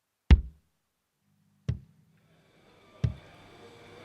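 Sparse electronic music: a deep, sharp drum hit about every second and a half. A low steady hum comes in a little over a second in, and a hiss builds under it from about two and a half seconds in.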